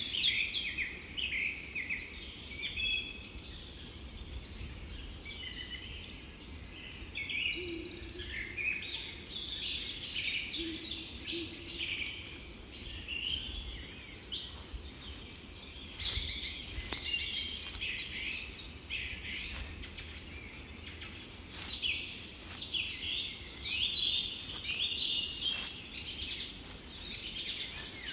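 Many small birds chirping and singing at once, calls overlapping constantly, over a low steady rumble of outdoor background noise.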